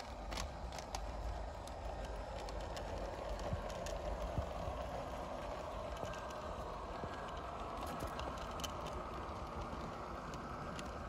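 Model garden-railway locomotive's motor and gears running steadily as it hauls two small wagons along the track, with the wheels clicking now and then over the rail.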